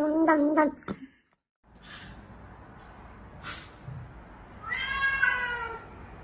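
A kitten makes a loud, pulsing growl while chewing, which cuts off after about a second. After a short silence, a cat gives one meow about five seconds in, falling slightly in pitch.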